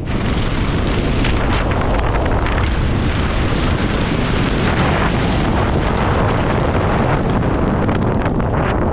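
Heavy wind rushing and buffeting over a skydiver's helmet-camera microphone in flight, a loud, steady roar of air.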